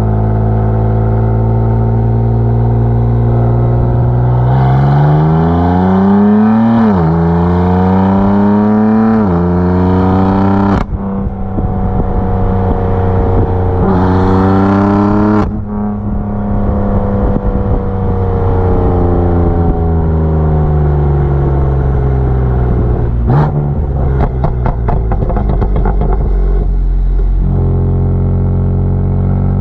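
BMW F82 M4's twin-turbo inline-six, breathing through aftermarket downpipes with a tune, pulling hard through the gears. The pitch climbs from about four seconds in and drops at two upshifts, the throttle closes abruptly with some crackle, and there is another short pull. The engine then winds down slowly and gives a quick string of exhaust pops and crackles on the overrun before settling to a steady low note.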